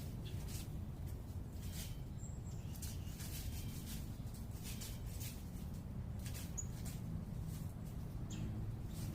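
Scattered short, high chips and ticks from small birds, over a steady low hum of distant city traffic.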